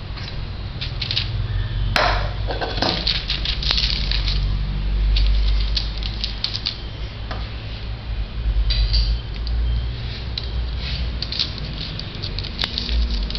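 Metal spatula scraping thick barfi mixture out of a pan onto a parchment-lined tray, with a sharp knock about two seconds in, then a steel spoon pressing and spreading the mixture and rustling the paper, over a steady low rumble.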